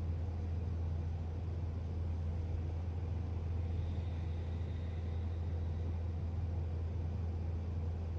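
Steady low hum under a faint even hiss, with a faint thin high tone for a couple of seconds midway.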